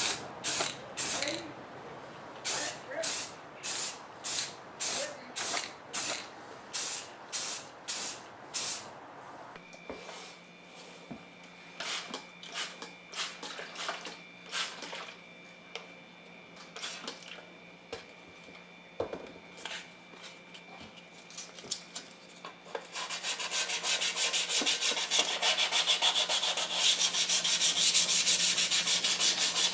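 Rhythmic hand-sanding strokes, about two a second, for the first nine seconds. Then a steady low hum with a faint whine and scattered clicks. About two-thirds of the way in, a loud steady hiss starts and holds.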